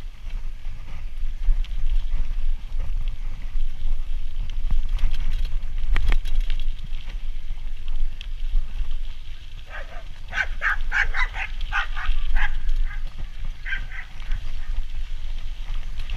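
A dog barking, a quick run of barks about ten seconds in and one more shortly after, over a steady low rumble.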